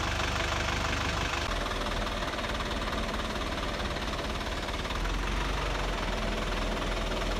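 Diesel engine of a crane truck running steadily while it drives the truck-mounted hydraulic crane lifting a heavy load. Its low note shifts slightly about a second and a half in, and again around five seconds in.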